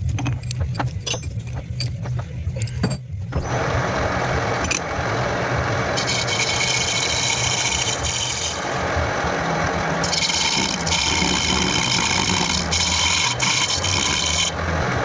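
Lathe running with a steady hum while a tool scrapes against the spinning copper workpiece; a few sharp clicks come first, then the scraping starts about three seconds in, with two longer, louder hissing passes from about six and about ten seconds in.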